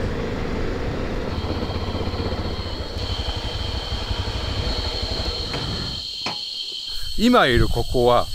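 Insects chirring in a steady high-pitched buzz from about a second in, over a low rumbling noise that drops away about six seconds in; a voice comes in near the end.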